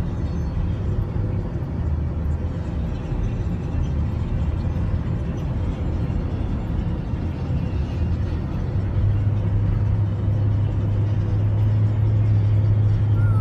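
Steady low rumble of a moving car's engine and tyres, heard from inside the cabin. The low drone grows a little louder about nine seconds in.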